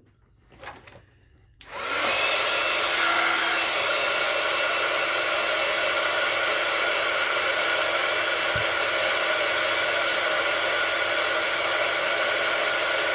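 Electric air blower switched on about a second and a half in, then running steadily: a loud rush of air over a steady motor whine.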